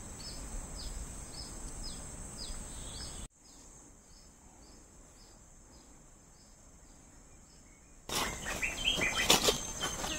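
Tropical riverbank ambience: a steady high insect drone with a regular run of short falling chirps, about three a second. About three seconds in the sound drops abruptly and carries on much fainter. A louder cluster of sharp knocks and clicks starts near the end.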